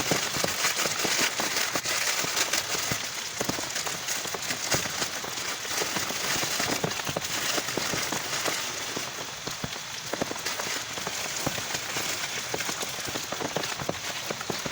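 Heavy rain falling steadily, with a dense spatter of individual drops striking a surface close by.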